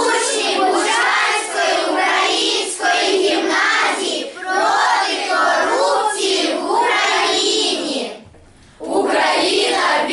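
A class of schoolchildren singing together in unison, unaccompanied. It breaks off briefly near the end, and another group of children's voices takes it up.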